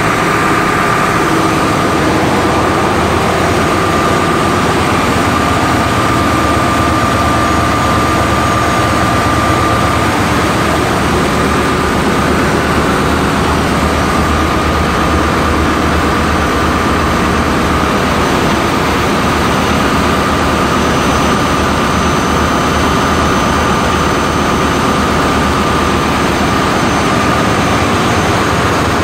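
Loud, steady running noise of air-conditioning plant machinery, with compressors and circulating pumps in operation, and a steady high whine over the drone.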